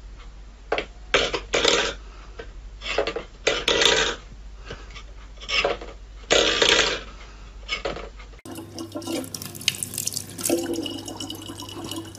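A stainless steel bowl scraping and clattering on a wooden floor as a cat paws at it, in a series of short bursts. About eight seconds in, a kitchen tap runs steadily in a thin stream into a plastic bottle.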